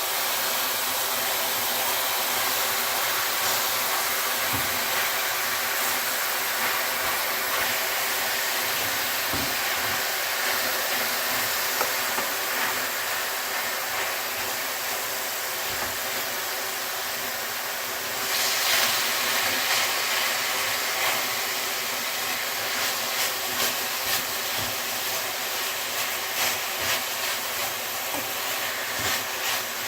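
Meat frying in a hot pan: a steady, dense sizzle with scattered crackles and pops. It swells louder about eighteen seconds in, and the pops come more often toward the end.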